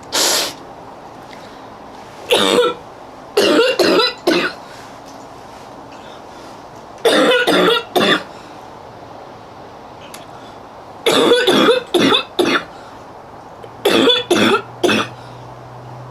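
A girl coughing in repeated fits: a single cough, then clusters of two to five coughs every three to four seconds.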